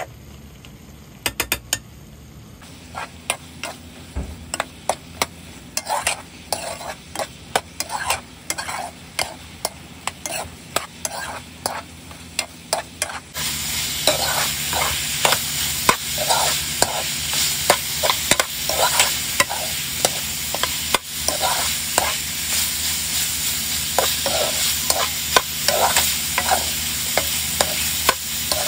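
Chicken gizzards being stirred in a frying pan: a spatula scrapes and knocks against the pan again and again. About halfway through, a louder steady sizzle joins the scraping as the gizzards fry in the reduced adobo sauce.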